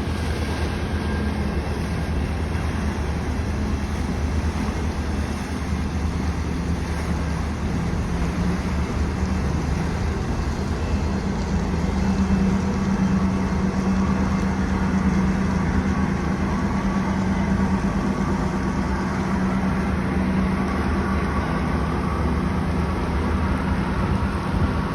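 A boat's engine running with a steady low drone, growing a little louder about halfway through.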